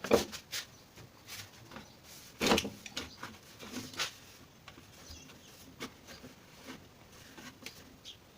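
Scattered clicks and light knocks of small parts and tools being handled during bench work on a scooter carburetor; the loudest come right at the start and about two and a half seconds in.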